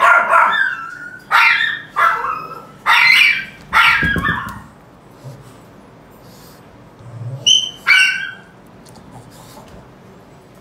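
Pug barking and yelping while its ear is cleaned with a cotton swab: about five loud calls in the first five seconds, then two shorter, higher yelps about eight seconds in.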